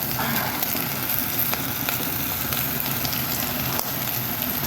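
Beef frying in a pan, a steady sizzle with small scattered crackles.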